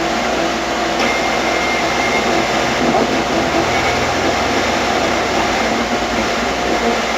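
Ghost box (radio-sweep spirit box) putting out steady radio static, with a faint thin tone running through it.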